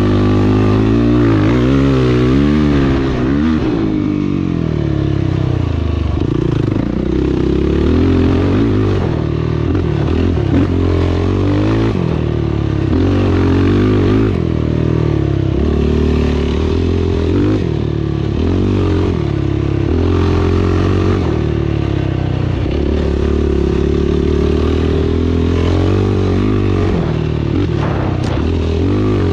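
Engine of an off-road race machine ridden hard, its pitch rising and falling over and over as the throttle opens and closes and it shifts gears.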